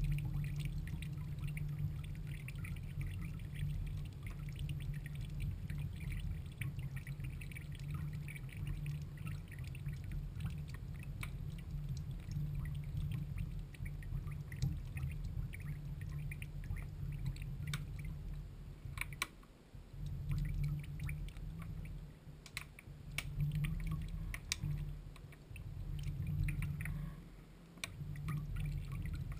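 Water pouring and dripping into a glass dish full of water: a steady splashing, bubbling rush with many sharp drip ticks. It lets up briefly about two-thirds of the way in and again near the end.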